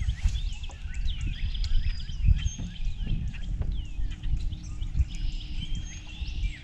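Many birds chirping and calling at once, a dense run of quick, overlapping sweeping chirps, over a low rumble. A steady low hum comes in a little past halfway.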